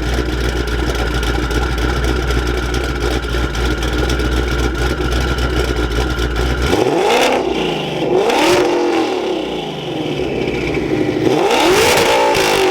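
Shelby GT500 V8 exhaust running steadily at idle, then revved in several quick rising-and-falling blips through the second half.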